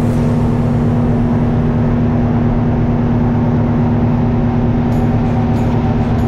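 Fishing boat's engine running steadily under way: an even hum with a strong unbroken tone over a rushing noise.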